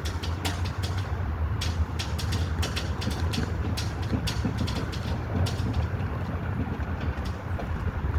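Strong wind buffeting the microphone as a steady low rumble, with flags flapping and giving irregular sharp snaps.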